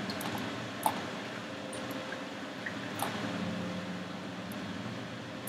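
Quiet room tone with a faint steady hum, broken by two short soft clicks about a second in and three seconds in.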